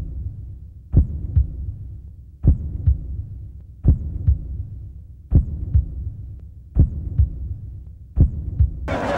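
Slow heartbeat sound effect: six double thumps (lub-dub), one about every one and a half seconds, over a low hum.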